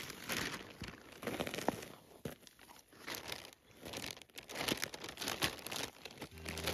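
Clear plastic zip-top bag crinkling and rustling under gloved hands as a fish is slipped into it, with snow crunching as it is scooped in around the fish.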